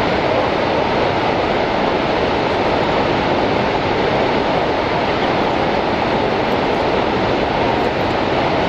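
The American Falls at Niagara: a steady, loud rush of falling water, even throughout with no breaks.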